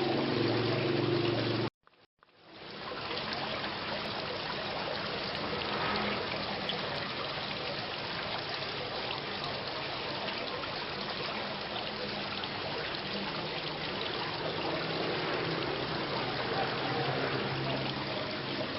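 Steady rain falling, an even wash of water noise. About two seconds in it cuts out to silence for under a second, then fades back in.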